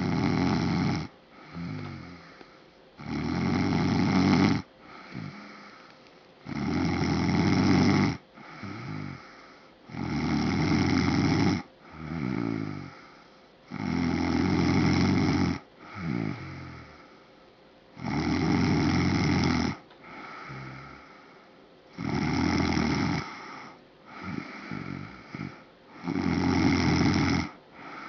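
Snoring in a steady rhythm: a loud snore of about a second and a half roughly every four seconds, with a quieter, broken breath between each.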